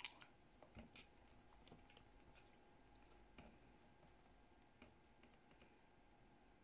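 Near silence: room tone with one sharp click at the start, then a few faint scattered ticks as the mirror dashcam is handled in the hand.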